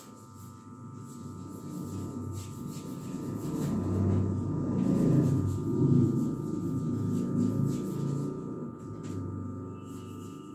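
A low, gong-like resonant drone that swells to its loudest about halfway through and then slowly fades.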